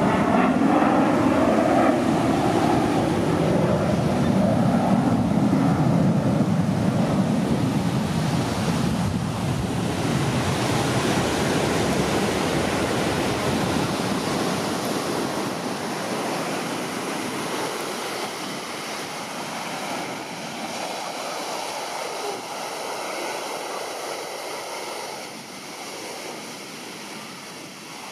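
Jet noise from U.S. Air Force Thunderbirds F-16 fighters, passing with a sweeping, shifting tone in the first couple of seconds, then receding and fading away steadily.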